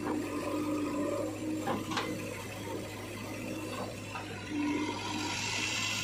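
JCB 3DX backhoe loader's diesel engine running with a steady hum, under a rushing, watery noise, with a couple of short knocks about two seconds in.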